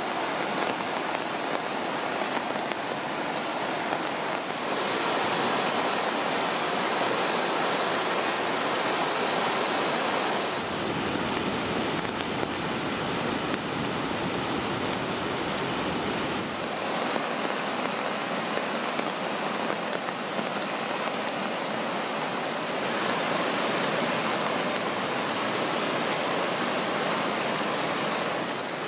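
Floodwater rushing: shallow water pouring across a washed-out gravel road and a swollen river running high through whitewater, heard as a steady rushing noise that changes at cuts about every six seconds. It is deepest in the middle stretch, where the flooded river churns past a log jam.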